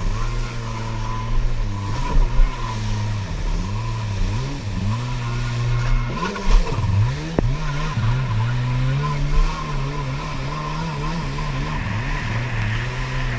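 Stand-up jet ski engine running hard, its pitch dropping and climbing back several times as the throttle is let off and squeezed again, over rushing water and spray.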